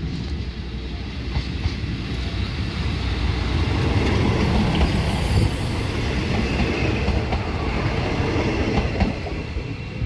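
Diesel railcar train passing close by on the track: the rumble of its engine and wheels builds to a peak about halfway and then eases off. Wheels clack over the rail joints, with a thin high wheel squeal in the second half.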